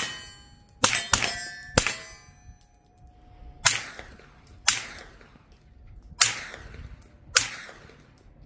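Aero Precision EPC-9 9mm carbine fired semi-automatically through a suppressor, about eight single shots: three quick ones in the first two seconds, then the rest about a second apart. After several shots a ringing clang of hit steel targets carries on.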